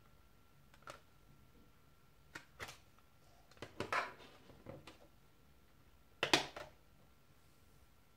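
Plastic CD jewel case handled and opened, a series of short hard plastic clicks and clacks. The disc is then snapped free of the tray's centre hub, the loudest click, about six seconds in.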